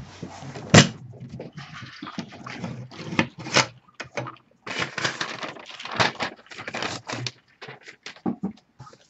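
Handling noise on hard plastic: an irregular string of clicks and knocks with rustling between them, the sharpest knock just under a second in.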